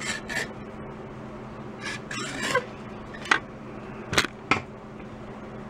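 A wood chisel scraping old glue out of the inlay groove of a wooden bass drum hoop: a few short scraping strokes, then three sharp clicks, all over a faint steady hum.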